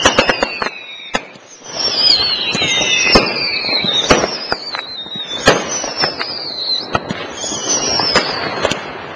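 Fireworks going off: a run of whistling fireworks, each a falling whistle about a second long, five or six of them overlapping one after another, with sharp firecracker bangs scattered throughout.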